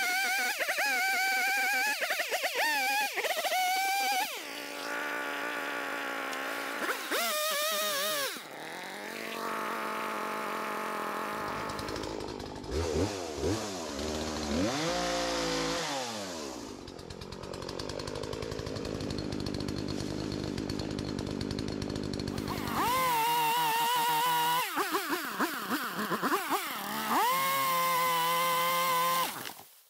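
Gas chainsaw revving and cutting into fallen timber, its pitch rising and sagging as it loads up in the cuts. It comes in several short stretches, with a steadier, lower-running stretch in the middle.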